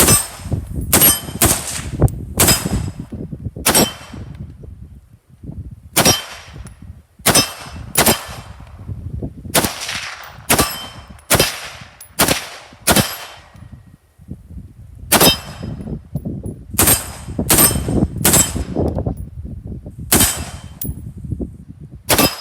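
An AR-15 rifle (Heavy Metal Tactical HMT-15) firing 5.56 mm green-tip rounds in semi-automatic, about twenty sharp shots at an uneven pace with a couple of short pauses.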